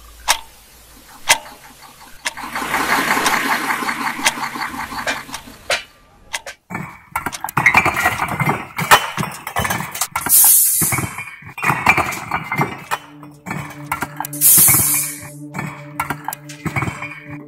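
Construction noise from a brick-breaking machine and clattering bricks: a few sharp clicks, then from about seven seconds a run of repeated knocks and clatters with two short, loud hissing bursts, mixed with background music.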